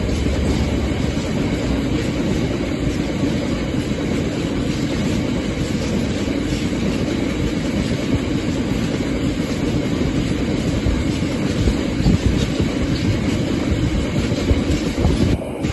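A train rolling past at close range: a steady, loud rumble of wheels on rail.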